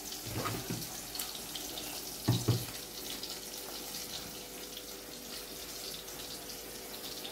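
Steady hiss of pots simmering on a gas stove, with a couple of soft knocks from kitchenware being handled.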